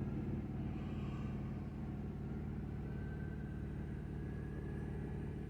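Truck engine idling steadily, a low, even hum heard from inside the cab.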